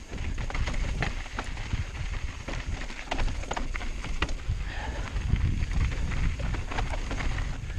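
Mountain bike clattering and rattling over loose rock and gravel on a fast descent, with many sharp irregular knocks from the tyres and frame over the stones. A steady low rumble of wind buffets the helmet-mounted action camera's microphone.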